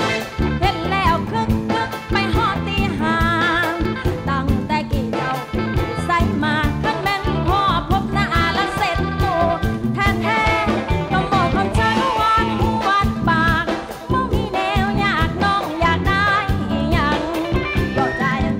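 Live Thai luk thung band playing, with a woman singing the lead vocal into a microphone.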